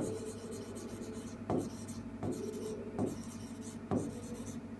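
Marker pen writing on a whiteboard: several short scratchy strokes, each starting with a light tap as the tip meets the board.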